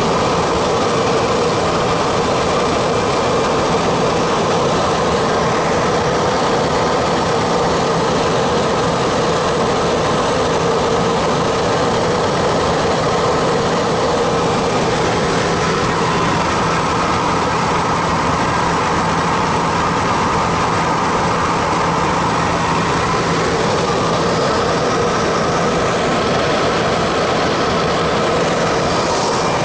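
A small high-wing aircraft's engine and propeller in flight, heard from inside the cabin: a loud, steady drone with a constant hum under it.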